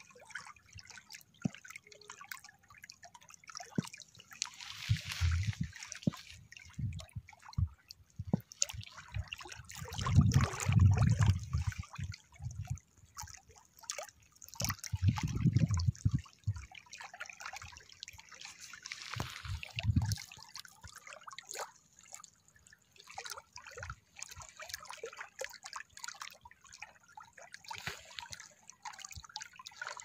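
Small lake waves lapping and splashing over a stony shore, an irregular patter of trickles and drips with louder surging washes several times.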